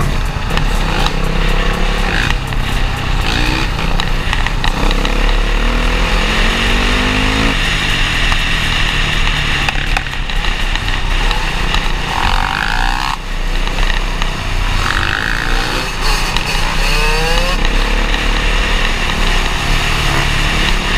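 Dirt bike engines running under way in a group, revving up several times with the pitch rising, heard from a helmet-mounted camera with heavy wind rumble over the microphone.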